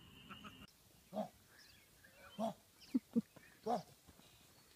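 A dog barking quietly: five short barks, unevenly spaced.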